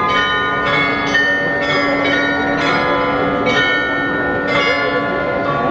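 The bells of the Munich Rathaus-Glockenspiel, a carillon of 43 bells, playing a tune: notes struck one after another, a new one about every half second to a second, each ringing on under the next.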